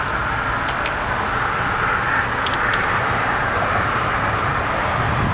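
Steady traffic noise from cars passing on a busy road, with a few faint clicks.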